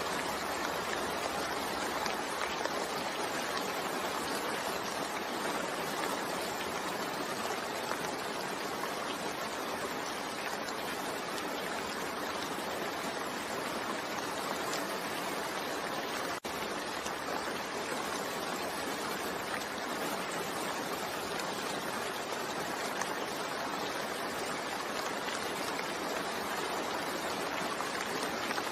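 Steady rain falling, a continuous even hiss of water, with a momentary dip about halfway through.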